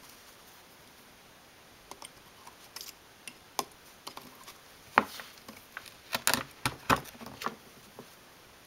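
Hobby-knife blade clicking and scraping against the iPod Classic's metal case as it is worked into the seam to pry the case apart: a scattered string of short sharp clicks and ticks, the loudest about five seconds in, with a quick cluster just after six seconds.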